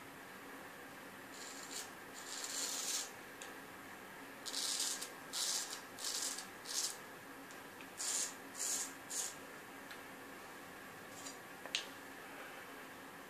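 Vintage A.J. Jordan straight razor shaving through lathered beard stubble: about a dozen short scraping strokes in quick groups of three or four, with a sharp click near the end.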